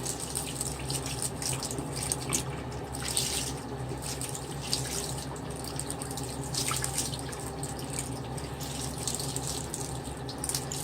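Tap water running steadily into a sink, with short wet scrubbing strokes now and then as a makeup sponge is rubbed on a bar of soap under the stream.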